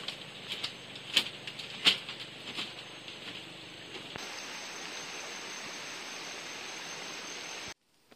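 A few sharp clicks and taps over a steady hiss, from someone handling electric wire and stepping across a bamboo slat floor. The clicks stop after about three seconds; the hiss carries on alone and cuts off suddenly near the end.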